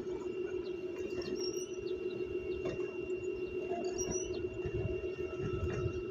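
Small birds chirping in short, high calls over a steady low hum, with some low rumbling about four to six seconds in.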